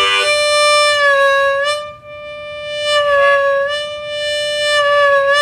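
Diatonic harmonica played tongue-blocked: a single draw note held long and bent down a little in pitch a few times, the bend pulled from the chest, with the note swelling and easing in loudness between bends.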